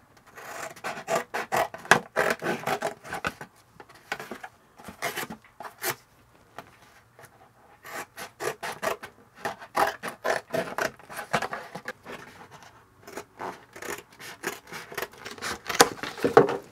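Thin cardboard of a cracker box being cut and worked by hand: runs of rapid rasping strokes in several spells, with short pauses between.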